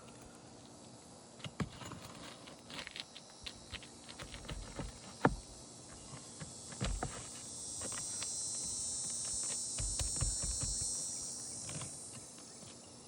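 Hand tools working on asphalt roof shingles as they are unsealed and their nails pried out: scattered clicks, taps and scrapes, with one sharp crack about five seconds in. A steady hiss swells up in the second half and fades before the end.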